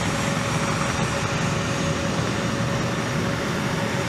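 Steady engine noise with a constant tone running through it, typical of flightline machinery running.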